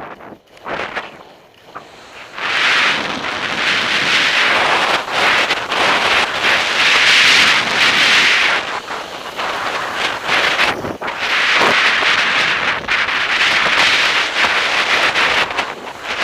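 Skis running fast down a groomed piste: skis hissing and scraping over packed snow, with wind rushing over the microphone. Quieter for the first couple of seconds, then the rush swells and eases in waves with the turns.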